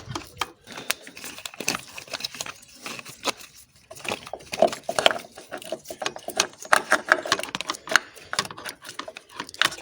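Hands fitting fuel return lines and their connectors: a busy run of small clicks, taps and rattles.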